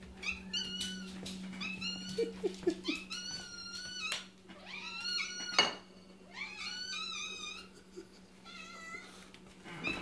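Domestic cats meowing over and over, a dozen or so short high meows in quick succession, begging to be fed milk. A sharp knock comes about halfway through, and a steady low hum runs underneath.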